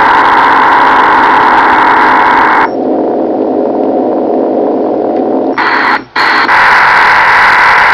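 Ham radio receiver on 9.803 MHz in sideband/CW mode putting out a loud, steady rushing noise signal of unknown origin, which the listener later suspected might be a HAARP transmission. About three seconds in it abruptly turns duller and lower, cuts out for an instant a little after six seconds, and then comes back as before.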